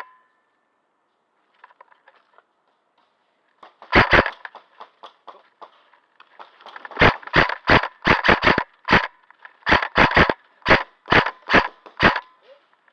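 Airsoft gun firing single shots: two sharp cracks about four seconds in, then a long string of quick shots, about three a second, from about seven seconds in.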